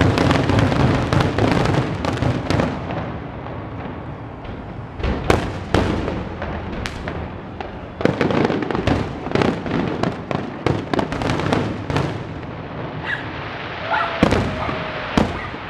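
Aerial firework shells bursting in quick succession, with sharp bangs over crackling. The barrage is densest at the start and again from about eight seconds in, with a thinner stretch in between.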